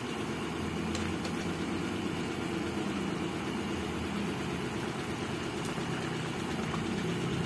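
Steady low rumble of a gas burner under a pan of simmering chicken adobo broth, with a couple of light taps of the plastic spoon against the pan about a second in.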